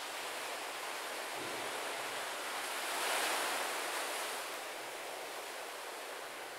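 Steady rush of wind and water off open lake water, swelling to its loudest about three seconds in and then easing back.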